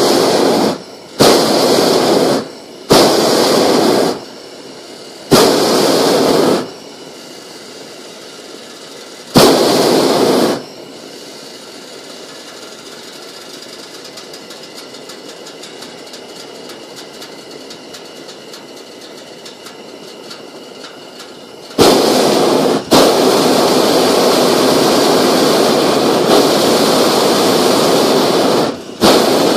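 Hot air balloon's propane burner firing in short blasts of about a second, five in the first ten seconds, then after a quieter stretch a long burn of about seven seconds, briefly broken just after it starts.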